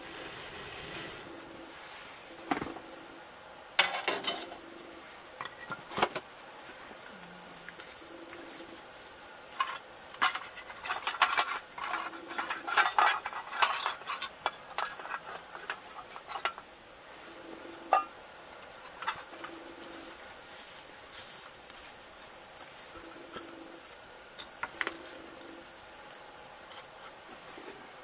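Metal clinking, knocking and scraping at a sheet-metal drum stove, in irregular single knocks with a busy spell of rapid clinks and scrapes about ten to fifteen seconds in.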